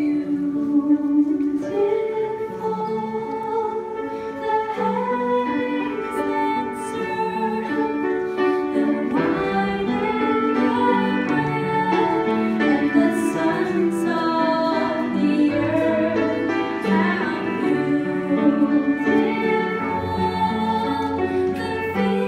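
Church choir singing with instrumental accompaniment, several voice parts on long held notes.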